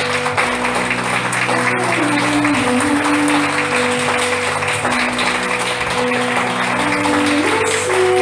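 Audience applauding over music with slow, sustained held notes.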